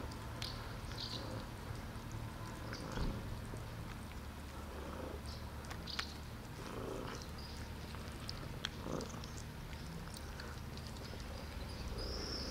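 Several cats eating wet food from plastic tubs: a low, steady purring runs under scattered small clicks of chewing and licking.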